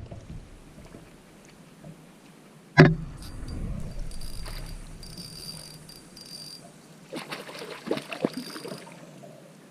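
A sharp knock about three seconds in. A thin, high, steady insect buzz follows for a few seconds, then a few lighter knocks and clicks near the end over quiet open-air background.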